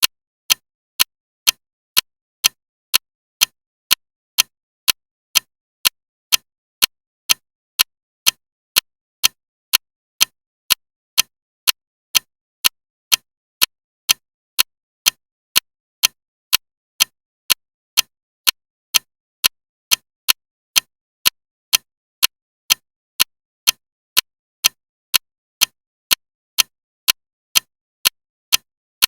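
Loud clock ticking steadily, about two evenly spaced high, clicky ticks a second, with silence between them.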